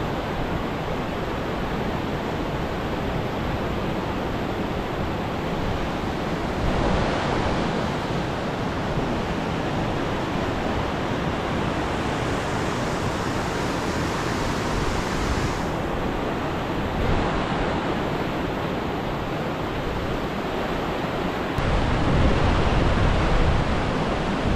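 Steady rushing roar of whitewater pouring over the rock ledges of a Class III/IV rapid, changing character abruptly several times. Near the end a louder low rumble of wind on the microphone comes in.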